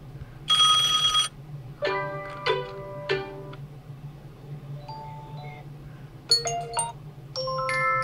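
Short previews of several OnePlus 12 ringtones played through the phone's speaker, each cut off as the next is tapped: an old-telephone-style bell ring about half a second in, then a string of brief chiming melodic snippets.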